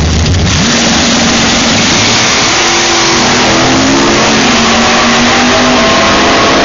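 A drag-racing car's engine goes from a deep staged rumble to a full-throttle launch about half a second in. It then accelerates away down the strip, its pitch climbing and stepping at the gear changes, over a loud rushing noise.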